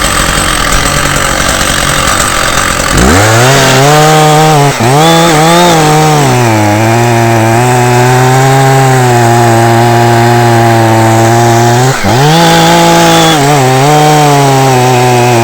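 Two-stroke chainsaw cutting ash wood. A loud, even hiss comes first. About three seconds in the engine note rises and holds at high, steady revs, dipping briefly twice as the chain takes load, around five and twelve seconds in.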